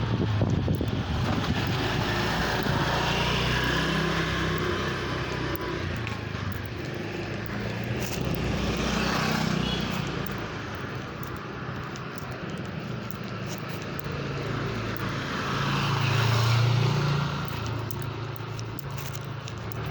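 Motor vehicle traffic passing, with two vehicles swelling past, the second one louder.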